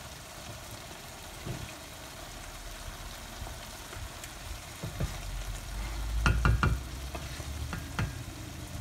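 Chicken and brain qeema sizzling in a pan while a wooden spoon stirs it, with a steady hiss. About six seconds in comes a quick cluster of sharp knocks, with a few single taps around it, as the spoon hits the pan.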